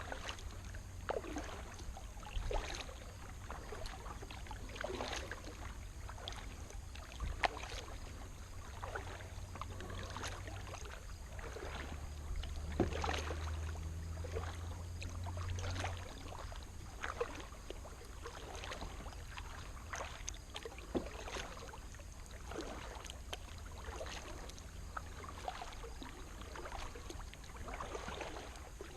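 Kayak paddle strokes in the water, with a short splash and drip every second or two, steady hard paddling against the current. A low steady hum runs underneath.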